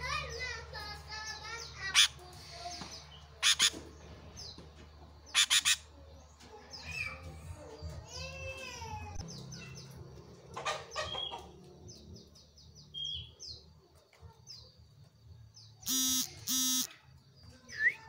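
Caged sooty-headed bulbul singing: varied chirps and warbled phrases, broken by sharp loud calls. Near the end come two loud harsh calls.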